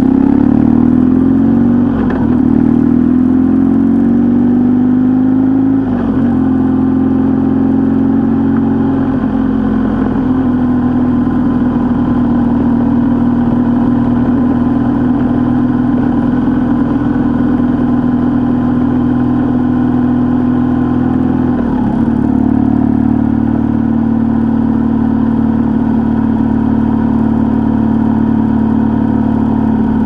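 A vehicle's engine running under way. It rises in pitch over the first few seconds with brief breaks about two and six seconds in, then holds a steady pitch, with another brief dip about three quarters of the way through.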